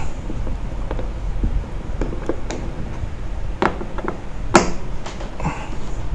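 Scattered clicks and knocks of a screwdriver and hands working on the plastic top housing of a DeWalt DW735 thickness planer while its cover screws are loosened. A few light taps come first, then a stronger knock, and the sharpest click comes about four and a half seconds in. A low steady hum runs underneath.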